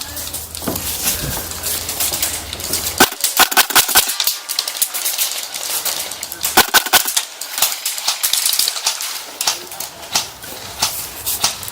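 Airsoft guns firing: clusters of sharp pops and clicks, in quick bursts and single shots, thickest from about three to eight seconds in.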